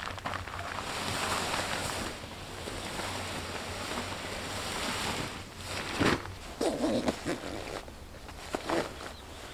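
Nylon military poncho sheet rustling and swishing as it is pulled off and handled. About six seconds in come a few sharp knocks and thuds, then more short rustles, as gear is handled and packed.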